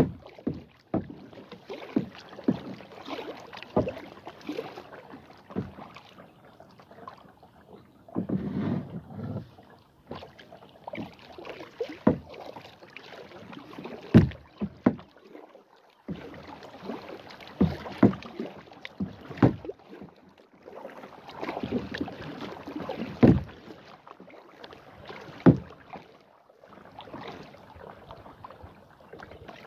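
Kayak paddling: runs of paddle strokes splashing and dripping in the water, broken by sharp knocks on the plastic kayak, with short pauses between runs.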